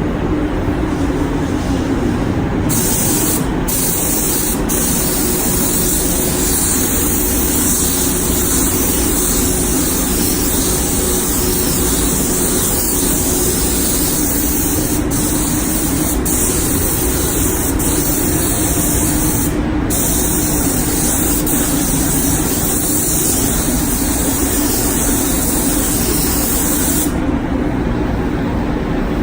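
Compressed-air spray gun hissing as it sprays primer. The hiss starts about three seconds in, breaks off briefly a few times as the trigger is released, and stops a couple of seconds before the end. Under it the spray booth's air system runs steadily.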